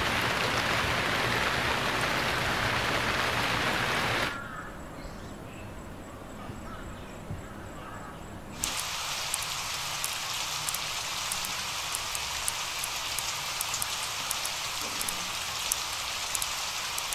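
Steady rain falling, with many small dripping ticks. A loud even hiss opens, drops to a quieter lull about four seconds in, and the rain comes back suddenly about halfway through.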